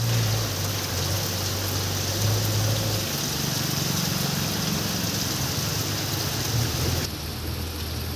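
Heavy rain pouring steadily onto a road, with the low hum of an approaching car's engine beneath it. The sound drops slightly about seven seconds in.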